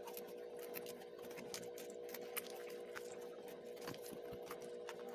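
Stiff paperboard puzzle pieces of a 3D jet model being handled and worked apart by hand: a run of small crackles and light clicks, with a steady hum underneath.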